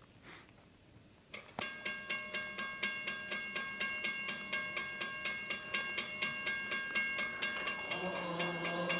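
Railroad grade-crossing bell starting up suddenly about a second and a half in, ringing with rapid, even strokes as the crossing signals activate for an approaching train. Near the end a locomotive horn begins to sound as the train nears.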